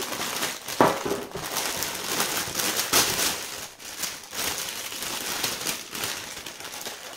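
Packaging crinkling and rustling as endives are handled and taken out, with sharper crackles about a second in and again about three seconds in.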